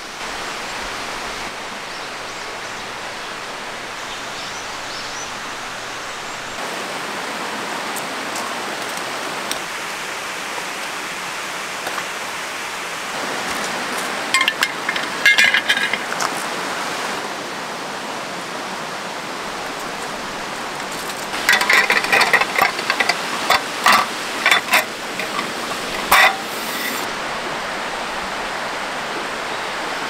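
Mountain valley stream running steadily, an even rush of water. Two clusters of short, sharp sounds break in over it: one briefly about halfway through, and another lasting several seconds a little after twenty seconds in.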